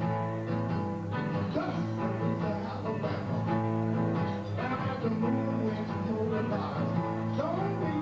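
Electric guitar playing a blues number live, with held notes and a few bends in pitch.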